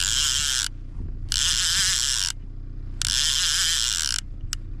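Fishing reel whirring in four bursts of about a second each as line is wound in on a hooked brook trout, over the steady low hum of the boat's motor.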